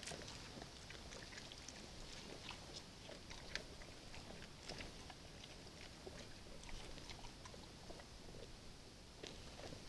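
Brown bears feeding at a bait container: faint, irregular crunching and clicking of chewing, over a steady hiss.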